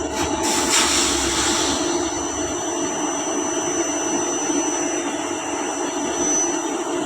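A steady machine noise: a continuous rush with a high, thin whine, a little louder for the first two seconds.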